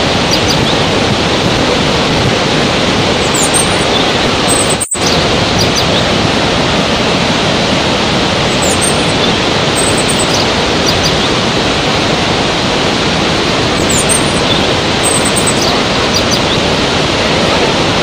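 Waterfall and rapids rushing as a steady, loud wash of water noise, with faint bird chirps now and then above it. The sound drops out for a split second about five seconds in.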